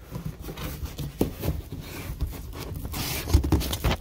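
Cardboard scraping and rubbing with scattered knocks as a large cardboard shipping box is handled and opened, the rustling growing louder toward the end.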